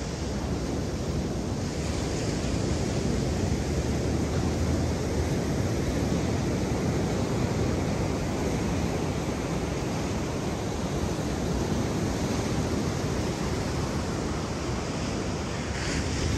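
Steady rushing noise of ocean surf breaking on the beach, with wind on the microphone.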